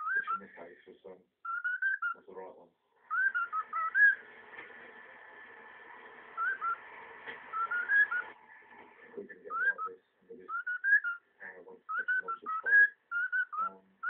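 Male grey cockatiel singing: bursts of short whistled notes that sweep up and down, mixed with lower chattering, repeated throughout.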